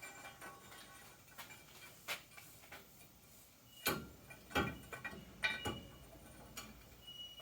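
Scattered light metal clicks and knocks from a yard hydrant's rod and plunger assembly being worked down into the standpipe, with a few louder knocks about four to six seconds in.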